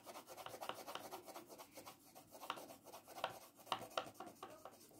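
Blue colored pencil shading a coloring-book page: quick back-and-forth strokes scratching faintly on the paper.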